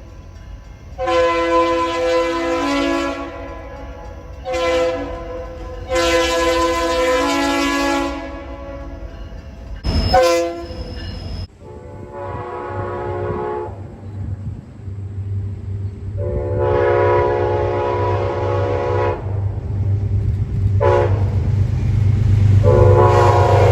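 Two locomotive air horns, each sounding a long, long, short, long pattern of blasts, with a sharp click between them about ten seconds in. In the second, a low engine rumble grows under the horn, and the last long blast falls in pitch as the train passes.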